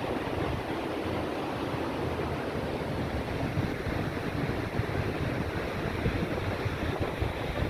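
Rough sea waves surging and breaking on the shore, with strong wind buffeting the microphone in a low, gusty rumble.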